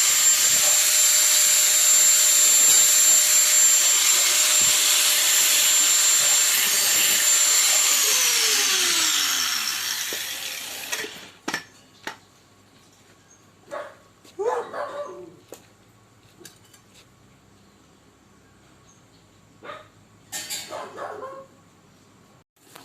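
A high-speed power tool running with a steady whine, then winding down in pitch from about eight seconds in and stopping. After that come scattered clicks and a couple of short animal-like calls.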